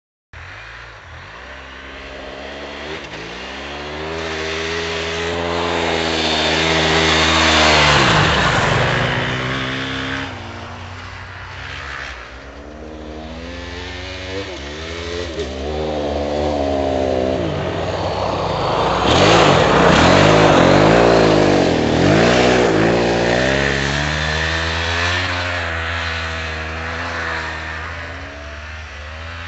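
Aprilia RXV motorcycle's V-twin engine revving hard and falling back again and again, its pitch climbing and then dropping at each shift or roll-off. The sound swells louder twice, about a quarter and two thirds of the way through.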